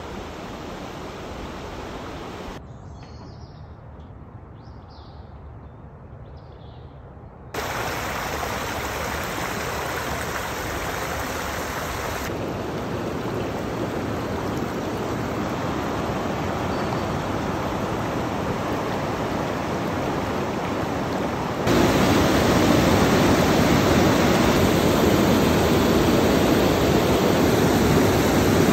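Boise River water rushing over shallow riffles and small rapids: a steady rushing that jumps in level at several cuts, quieter for a few seconds early on and loudest over the last several seconds.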